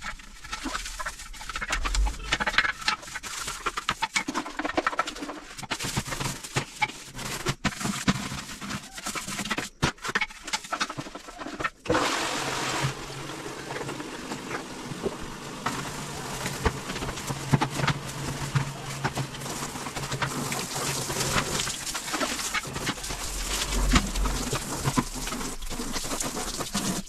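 Plastic toilet brush scrubbing a ceramic toilet bowl, with knocks and clatter from handling a plastic cleaner bottle and brush. About halfway through a steady hiss sets in and continues.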